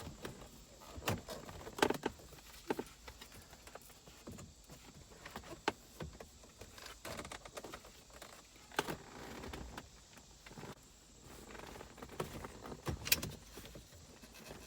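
Scattered clicks and knocks of BMW E46 plastic interior trim pieces being handled and pressed back into place, with soft rustling between them; the sharpest click comes near the end.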